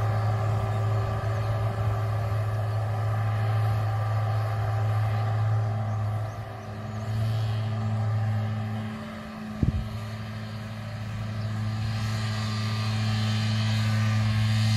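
Farm tractor's diesel engine running steadily, a deep even drone that dips twice around the middle and then comes back. One sharp click cuts in just under ten seconds in.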